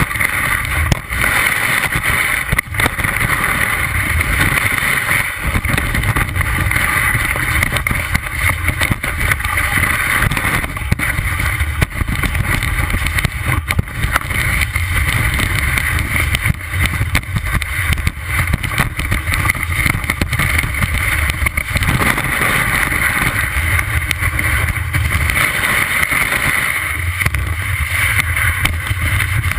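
Skis running through deep powder snow, heard from a camera mounted on the ski. A steady rush of snow and wind over a low rumble, dotted with small ticks as snow sprays against the camera.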